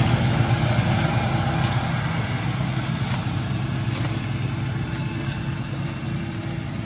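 A motor engine running steadily with a low hum, slowly fading, with a few faint clicks.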